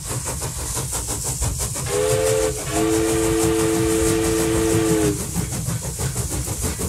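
Steam locomotive chuffing in a steady rhythm with hissing steam, fading in at the start. Its whistle gives a short blast about two seconds in, then a longer, lower blast of about two seconds, each sounding two notes at once.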